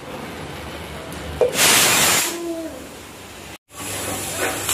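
Aluminium pressure cooker on a gas burner giving a whistle: its weighted valve lets off a short, loud hiss of steam about a second and a half in. The whistle is the sign that the cooker has come up to pressure.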